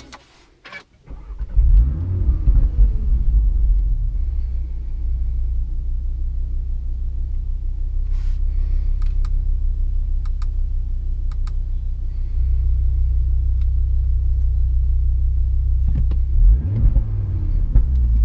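MTM-tuned Audi RS3 R's 2.5-litre turbocharged five-cylinder starting about a second in, flaring up in revs, then settling into a steady, deep idle. The idle gets louder about twelve seconds in, and the revs rise briefly near the end.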